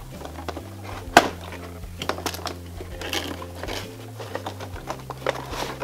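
Cardboard box and plastic packaging tray of a toy set handled as it is pulled out of the box: irregular clicks, taps and scrapes, the sharpest knock about a second in. Soft background music plays underneath.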